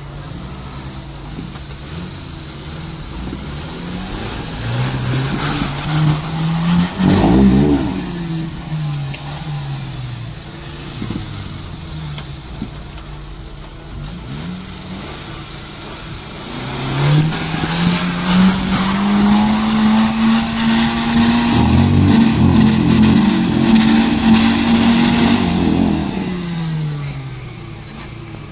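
Suzuki Jimny's engine revving hard as the 4x4 works through deep mud: a short burst of revs that falls away, then a longer one held high for several seconds before easing off.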